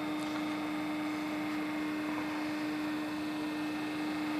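Fishing torpedo's propeller motor running at a steady speed, giving an unchanging hum.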